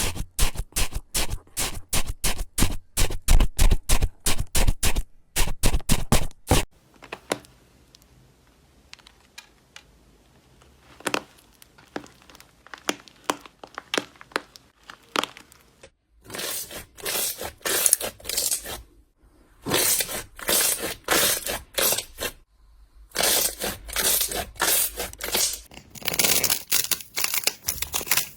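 Slime being squeezed and pulled by hand, giving runs of sticky crackles and pops. The crackles fade to soft, sparse clicks for several seconds in the middle, then come back dense and loud, with brief silent breaks between clips.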